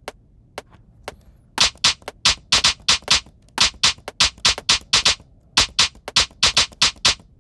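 Sampled electronic hi-hat playing in runs of quick, crisp hits, a little over five a second, with short pauses between runs and a few single hits at the start. The timing is slightly uneven: the part has been played in by hand and not yet quantized.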